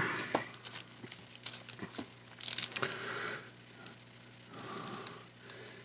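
Faint, irregular rustling and crinkling of a 1987 Topps wax-paper baseball card pack being handled, with fingers working at its folded end, and a few light taps. The rustling is a little louder around the middle and again near the end.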